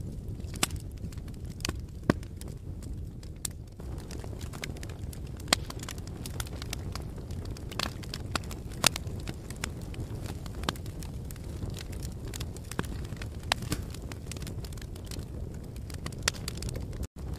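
Wood fire burning in a fireplace: a steady low rumble of flames with irregular crackles and sharp pops from the burning logs. The sound cuts out for an instant near the end.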